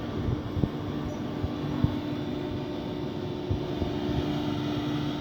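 Steady hum of a CNC nesting router with its vacuum hold-down table running, with a few light knocks scattered through it.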